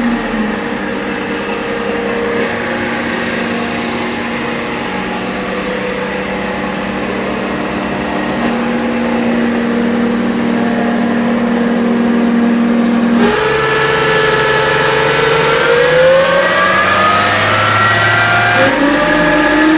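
Mercedes-Benz 7-speed automatic transmission whining with the engine running, the distinctive noise of a failing transmission oil pump. Steady whine tones, then about 13 seconds in the sound changes and the whine climbs in pitch over several seconds.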